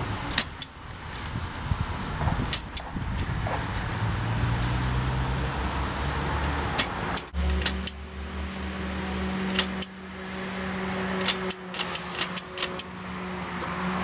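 Simplex index typewriter worked by hand: sharp metallic clicks, often in pairs a fraction of a second apart, as the lettered dial is pressed to print, with a quicker run of clicks near the end.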